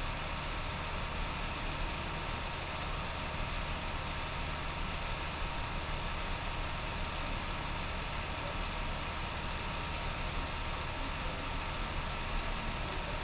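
Steady background hiss with a low hum and a faint thin whine, unchanging throughout.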